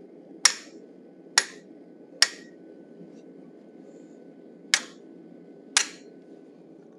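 Five hammer blows on a hand-held chisel set against red-hot steel, each a sharp metallic strike with a brief ring: three about a second apart, then a pause of two seconds and two more.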